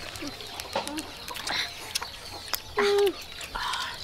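Chickens clucking in a few short calls, the loudest just before three seconds in, with scattered light clicks.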